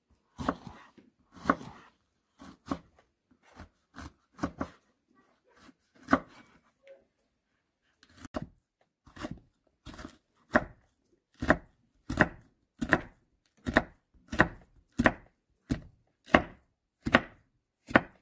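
Kitchen knife chopping a green bell pepper on a wooden cutting board. The cuts are scattered at first, then from about halfway through it settles into a steady chop about every three-quarters of a second.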